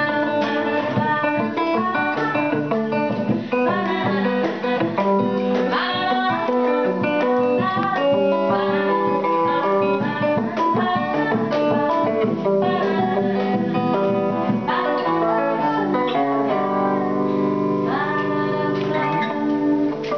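An electric guitar through a small amplifier plays single-note lines over an acoustic guitar. Both settle on a long held chord for the last few seconds.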